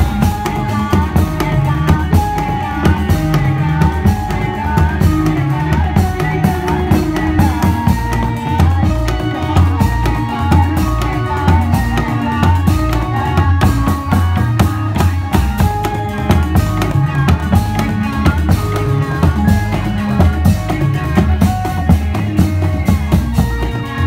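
Reog Indramayu ensemble music: drums beating a steady, heavy rhythm under a melody of short notes.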